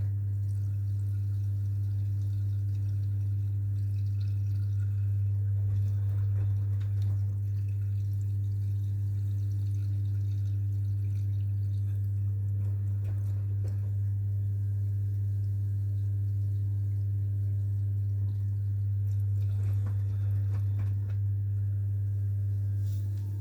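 AEG washing machine running with a steady low hum, along with faint trickling and dripping water.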